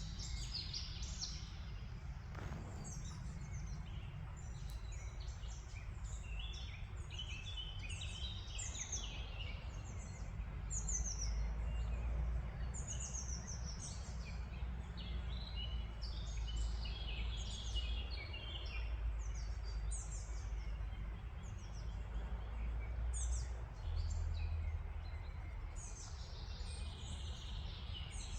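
Small birds chirping and singing, many short falling chirps overlapping throughout, over a steady low rumble.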